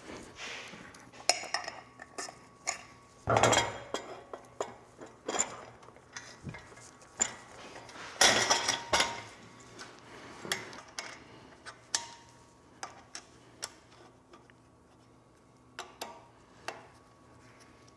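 Steel dethatcher parts and hardware clinking and knocking as they are handled and fitted, with scattered sharp clicks and a few louder knocks about three and eight seconds in, quieter toward the end.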